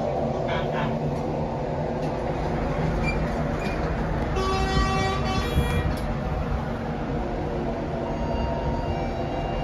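Steady rumble of a railway station, with a horn sounding once for about a second and a half midway, most likely a train's horn.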